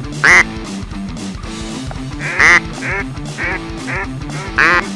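Inexpensive hand-held duck call blown in a series of quacks: two loud drawn-out quacks, then three shorter, softer ones about half a second apart, and another loud quack near the end. Background music plays under it.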